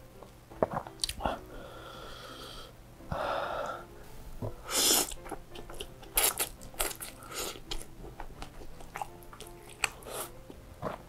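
Close-miked slurping and chewing of chili-oil noodles: a hard slurp of noodles about five seconds in, then a run of wet chewing and lip-smacking clicks. A hum and a breathy exhale come earlier.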